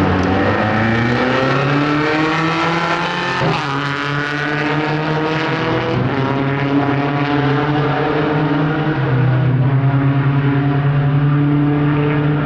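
Two drag-racing motorcycles accelerating hard down the strip, the engine note climbing in pitch and breaking off at each upshift, about three and a half and six seconds in. From about nine seconds in, a steadier, louder engine drone takes over.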